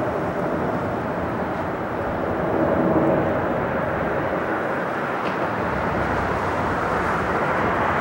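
Distant Airbus A330 jet airliner's engines running steadily, mixed with wind noise, swelling slightly about three seconds in.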